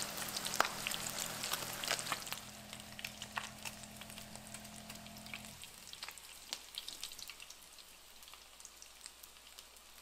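Corn-tortilla tacos deep-frying in hot oil in a cast-iron skillet: a steady sizzle with many sharp crackles and pops, busiest in the first couple of seconds and then thinning and growing quieter.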